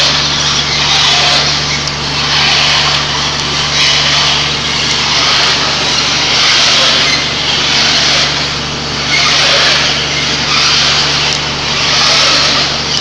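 Soybean extruder running under load: a steady motor hum beneath a loud, rough noise that swells and fades every second or two.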